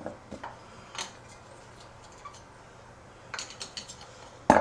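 Metal tools and small-engine parts clinking and knocking against each other: a single click about a second in, a quick run of light clinks a little past three seconds, and one louder knock near the end.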